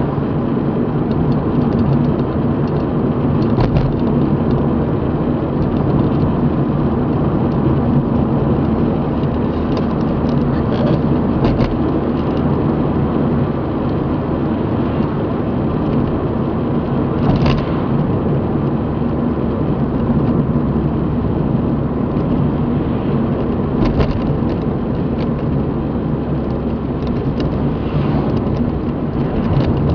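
Steady road and engine noise of a moving car heard from inside its cabin, a low rumble of tyres and engine, with a few brief knocks partway through.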